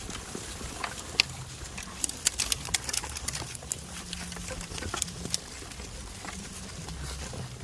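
Goats moving about at close range: scattered sharp clicks and taps, irregular and a few a second, over a low steady rumble.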